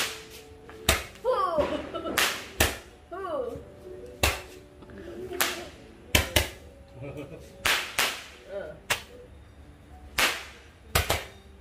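Handheld firework tube firing small sparking projectiles, about a dozen sharp pops at irregular intervals a second or so apart.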